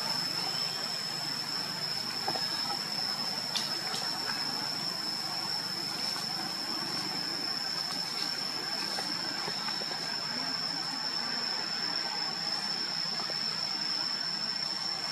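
Outdoor forest ambience: a steady, high-pitched insect drone, such as cicadas, held on one unbroken tone over a continuous background hiss, with a couple of faint clicks.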